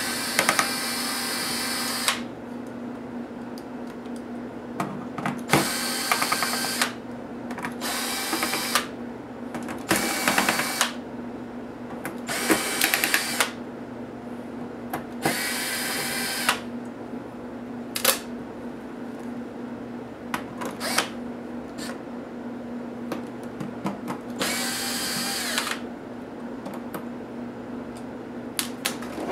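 Cordless electric screwdriver whirring in about seven short bursts of one to two seconds each, backing screws out of a laptop's bottom case. Short clicks and knocks come between the bursts.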